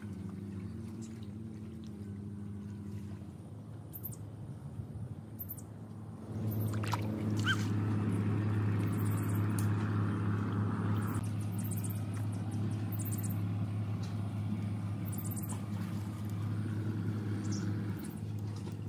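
An engine running steadily with a low hum, getting louder about six seconds in, with faint high chirps over it.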